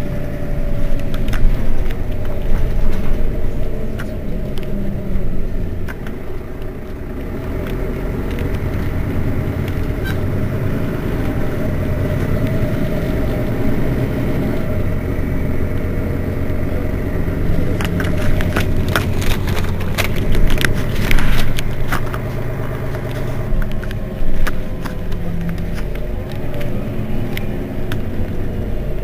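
Mercedes-Benz Citaro Facelift city bus engine idling with the bus at a standstill, a steady low rumble. A run of sharp clicks comes about two-thirds of the way through.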